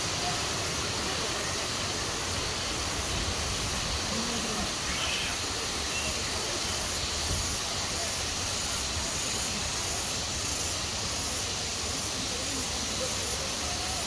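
Steady rush of flowing river water, with faint voices in the distance.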